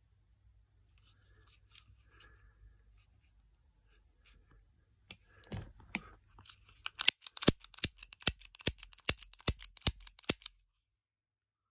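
EMGE Model 6 blank-firing starting pistol handled and then dry-fired, its trigger worked over and over with no blank going off: a run of sharp metal clicks, about three a second, that stops suddenly. Fainter handling clicks and a dull knock come first.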